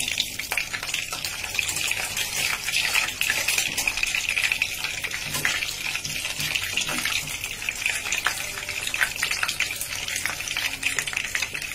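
Kebab patties, still icy from the fridge, sizzling and crackling in hot oil in a nonstick wok: a steady hiss with many small pops of spitting oil.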